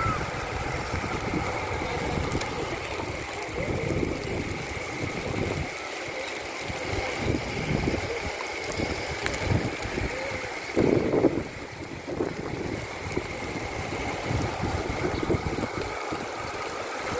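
Wind gusting over the phone's microphone: an uneven low rumble that swells and briefly drops away a few times, over a steady outdoor hiss.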